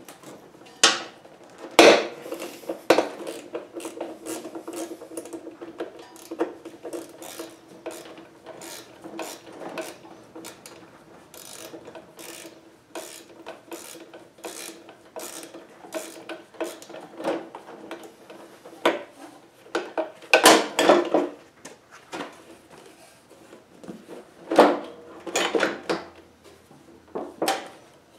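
Hand tools clinking and rattling against metal and plastic as the 12 mm headlight bolt is undone and the plastic cover is worked loose on a Honda HSS1332 snowblower. The clicks and clatters come irregularly, loudest about two seconds in, around twenty seconds in, and in a run near the end.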